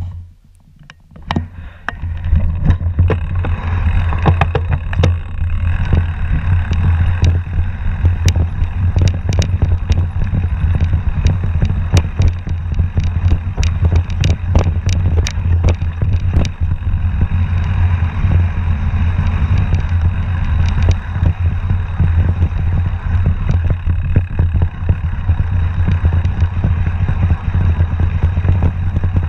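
Mountain bike rattling and clattering over a rough dirt trail on a fast descent, with many sharp knocks from the bumps over a constant low rumble of wind on the camera microphone. The noise starts about two seconds in.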